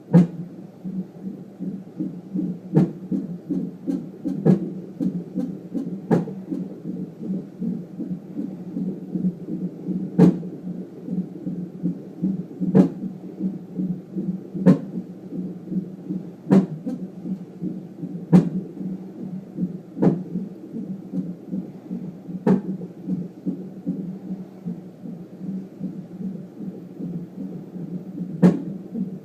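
Unborn baby's hiccups heard through a fetal Doppler: a sharp pop every two seconds or so over the steady pulsing whoosh of the heartbeat, with a longer gap near the end.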